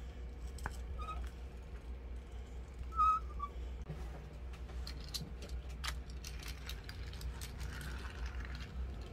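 Toy cars being handled and set down on a road mat: light clicks and taps, mostly between about four and seven seconds in. A short high squeak sounds twice, the louder about three seconds in, over a steady low hum.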